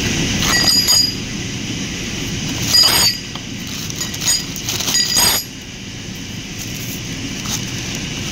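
New steel timing sprockets clinking and ringing briefly as they are handled and set down, several times, over a steady background rush.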